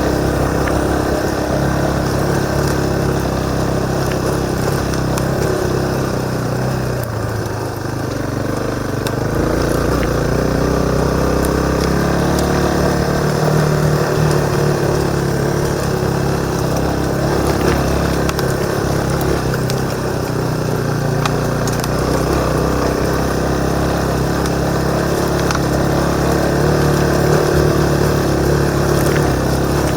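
Motorcycle engine running under way, heard from a helmet-mounted camera. The revs drop about seven seconds in and climb again, then hold fairly steady with small rises and falls.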